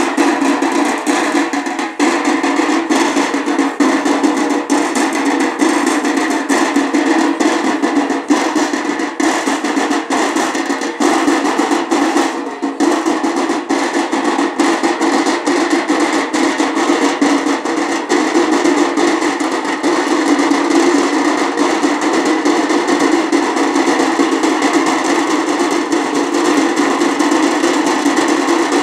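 Loud procession drums beaten in a fast, continuous rhythm, over the steady din of a crowd.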